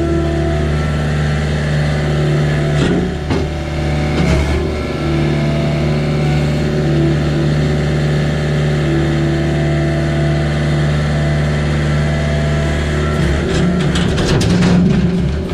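A vehicle engine running at a steady speed, with a few knocks and clatters about three to four seconds in and a burst of them near the end.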